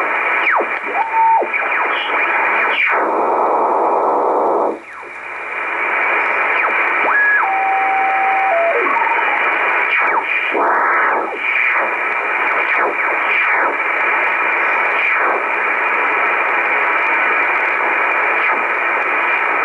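Icom communications receiver in upper sideband being tuned by hand across the 12.8–13 MHz shortwave band: a steady hiss of static with whistles sliding up and down in pitch as signals pass through the tuning. There are a few brief steady tones, and a two-second stretch of denser hiss about three seconds in that cuts off abruptly.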